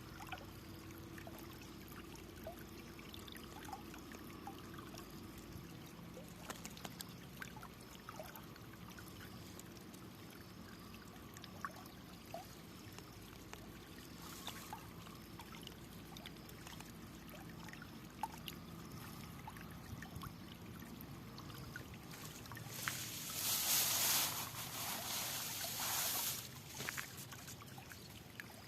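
Flowing water trickling steadily, with scattered small drips and splashes; a louder rush of water swells for about three seconds near the end.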